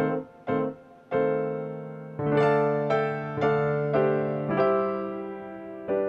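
Background music: an electric piano playing a gentle run of chords, a new chord struck every half second to a second, each ringing and fading.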